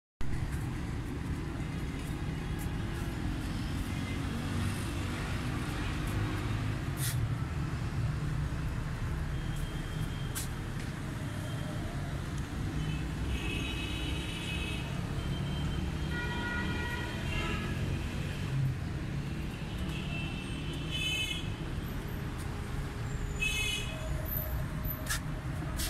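Steady low rumble of street traffic, with a few short high-pitched sounds in the second half.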